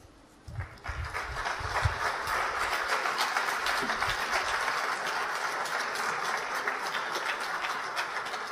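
Audience applauding: dense, steady clapping that builds within the first second and cuts off suddenly at the end.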